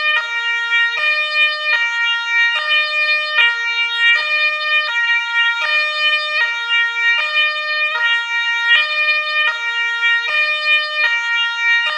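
Two-tone ambulance siren switching back and forth between a high and a low note, each note held a little under a second, in a steady unbroken cycle.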